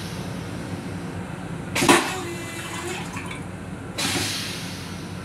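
M7 railcar toilet flushing its stainless steel bowl. There is a hiss of rushing water, a loud sudden whoosh about two seconds in, and a second burst of hiss about four seconds in that fades away.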